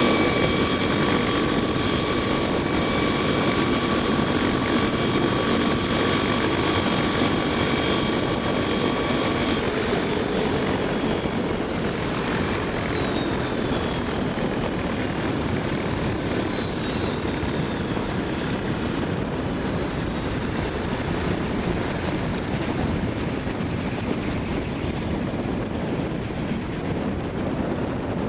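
Air ambulance helicopter's rotor and turbine engine running, with a steady low rotor rumble and a high whine. About a third of the way in, the whine starts falling in pitch and the sound slowly fades as the helicopter moves away.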